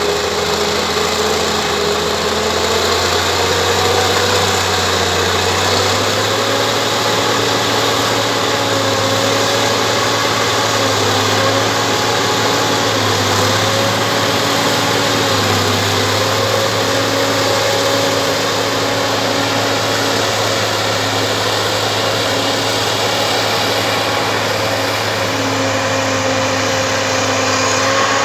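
Bulldozer's diesel engine running steadily, its pitch rising a little a few seconds in and then wavering slightly.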